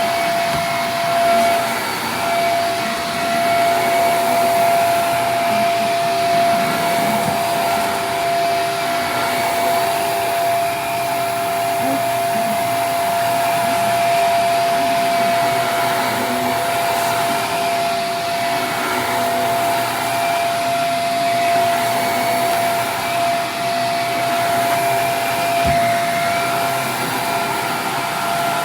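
Vacuum cleaner running steadily, its motor holding one steady high whine over an even rushing of air.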